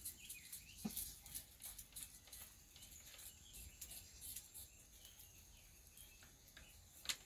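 Faint rural outdoor ambience: quick high chirps and ticks over a thin, steady high whine, with one brief falling note about a second in.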